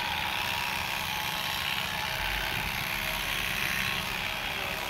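Corded electric animal clippers running steadily, shearing the hair on a donkey's leg.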